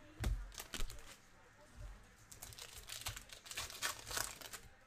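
Foil trading-card pack wrapper crinkling as it is torn open and handled, with cards being handled alongside it.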